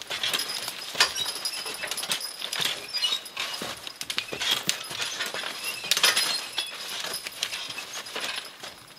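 Twigs and branches snapping and crackling under a team of draft horses and a wheeled logging forecart dragging a log through brush, with a light clinking of harness hardware. The sharpest cracks come about one second in and about six seconds in.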